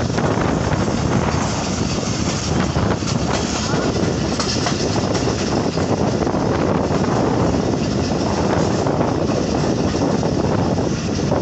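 Passenger train running at speed, heard from an open coach window: a steady rumble of wheels on rails with faint clicks over the rail joints.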